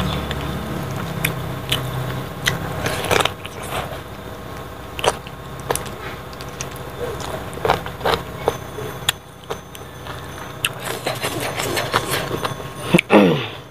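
Close-up mouth sounds of a person eating rice and pig trotter by hand: chewing and lip smacking, with irregular wet clicks. A low hum fades out over the first few seconds, and a brief falling vocal sound comes near the end.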